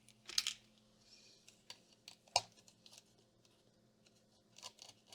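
Scattered light clicks and taps of small laptop parts and connectors being handled and unplugged during disassembly, with one sharper click about two and a half seconds in.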